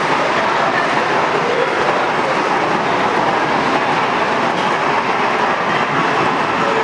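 Model passenger train running along the track of a model railroad layout, a steady running noise without a break.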